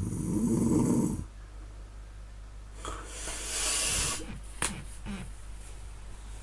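A person snoring: one loud, low, rattling snore in the first second, then a long noisy breath about three seconds in, and a sharp click a little later.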